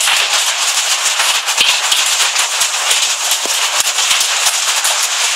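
Hailstorm: hail and rain pelting down in a dense, steady rattle of countless small impacts.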